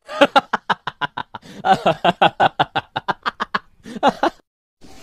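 Rapid, even 'ha-ha-ha' laughter, about six pulses a second, in two long runs and a short third, stopping briefly near the end.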